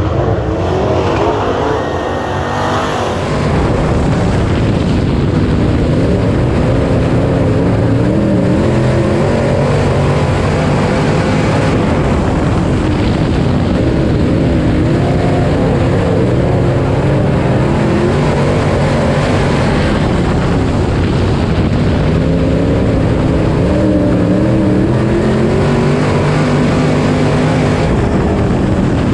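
IMCA Modified race car's V8 engine heard from inside the cockpit at racing speed, the revs rising and falling again and again as the car goes from throttle on to off around the dirt oval. For the first three seconds or so it sounds different, more like race car engines heard from beside the track.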